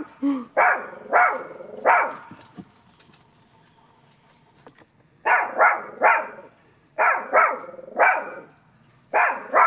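Small Pekingese–Chihuahua mix dog barking in short runs: about four barks in the first two seconds, a pause of about three seconds, then more barks in twos and threes from about five seconds in.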